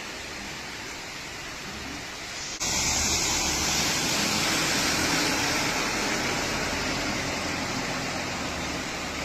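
Steady rush of heavy rain and running floodwater, turning abruptly louder and brighter about two and a half seconds in.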